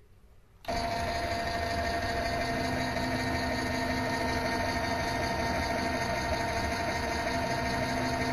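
Mini lathe running with its chuck spinning: a steady mechanical whine made of several fixed tones. It starts abruptly about a second in.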